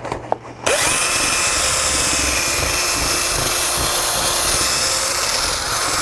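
Electric drill starting up about half a second in, its motor quickly coming up to speed, then running steadily at full speed while boring out a hole to enlarge it.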